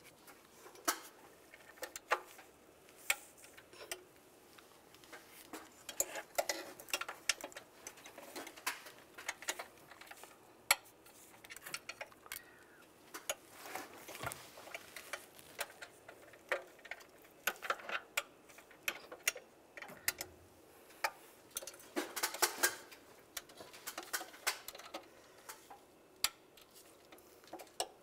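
Torque wrench ratcheting in short runs of irregular sharp clicks as intake manifold bolts are tightened on the second torque pass to 7.4 foot-pounds.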